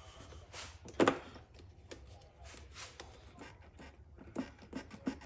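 Hands working on motorcycle parts: scattered knocks, clicks and rustles of parts being handled and pried at, with one sharp knock about a second in and a run of smaller knocks near the end.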